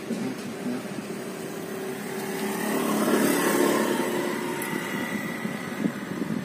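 A motor vehicle engine running nearby, growing louder about halfway through and then easing off somewhat, like a vehicle passing.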